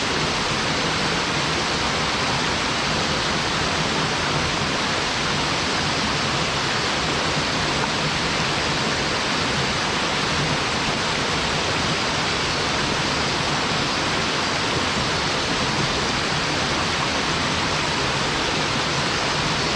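Waterfall with three streams of falling water, crashing in a steady, unbroken rush.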